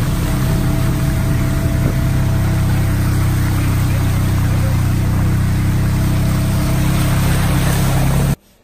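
A vehicle's engine running steadily with a constant low hum as it drives along a woodland trail, under a continuous rushing noise. The sound cuts off abruptly near the end.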